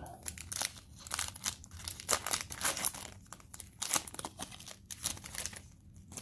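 Foil wrapper of a Panini Mosaic football card pack crinkling and crackling rapidly as gloved hands handle it and tear it open, dying down near the end.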